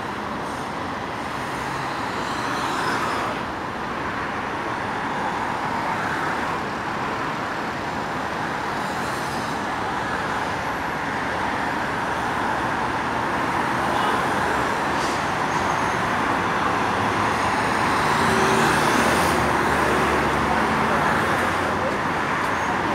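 Steady road traffic noise from cars passing on a multi-lane road: a constant hiss of tyres and engines, getting a little louder in the second half.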